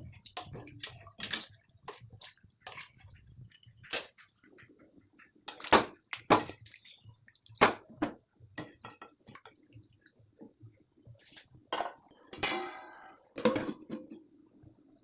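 Scattered clinks and knocks of kitchen utensils against pots and dishes, irregular and a second or so apart, with a brief scrape near the end. A faint steady high whine runs underneath.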